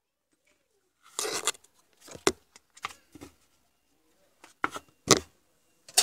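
Handling noise from a circuit board and its attached cable being picked up and turned over on a cloth: about a second in, a run of six or seven short rustles and knocks begins, the loudest near the end.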